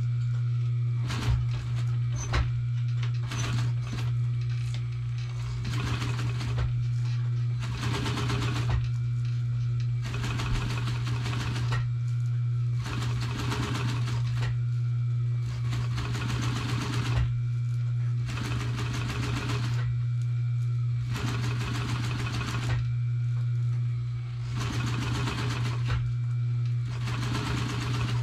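Upholstery sewing machine stitching heavy black fabric in short runs of about a second, with pauses between, over a steady low hum.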